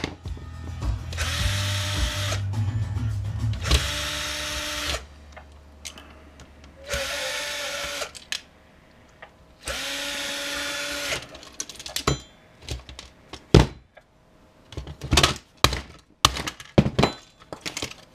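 Cordless drill-driver running in four short bursts, backing small screws out of a DVD drive's optical reader assembly; each burst briefly rises in pitch as the motor spins up. In the last third, sharp plastic clicks and knocks as the loosened drive assembly is handled, one louder knock among them.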